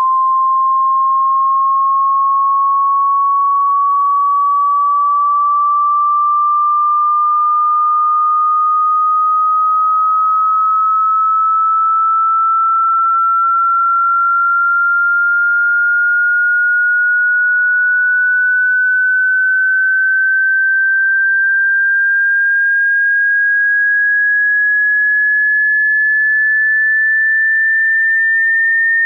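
A pure sine-wave test tone rising slowly and steadily in pitch at an even level: part of a hearing-test frequency sweep from 20 Hz to 20,000 Hz.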